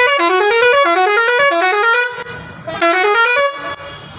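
A truck's six-pipe Roots musical horn set, driven by a digital melody maker, plays quick runs of short notes that climb in pitch, three runs back to back, then a shorter burst about three seconds in. The horn is being tested after fitting.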